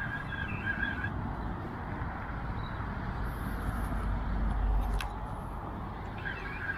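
Steady traffic noise from a nearby highway, with a low rumble that swells about four to five seconds in as a vehicle passes, and a single faint click near five seconds.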